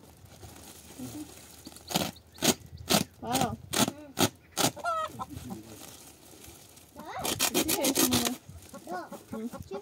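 Chickens clucking in short, separate calls, then a louder run of calls lasting a second or so about seven seconds in.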